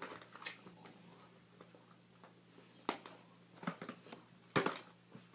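A few short, scattered clicks and crinkles of candy packaging being handled on a table, the loudest cluster about four and a half seconds in.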